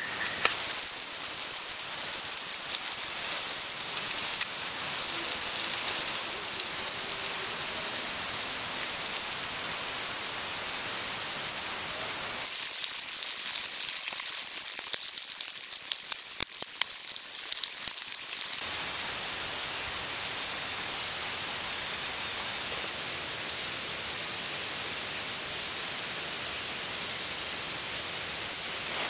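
Fish frying in a pan over a campfire, a steady sizzle with scattered crackling pops through the middle stretch. From a little past halfway a cricket's steady high-pitched note runs over it.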